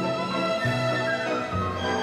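Orchestral music, violins carrying the melody over sustained low bass notes that change about every half second.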